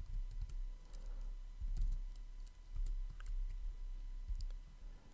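Typing on a computer keyboard: scattered, irregular keystrokes over a low steady hum.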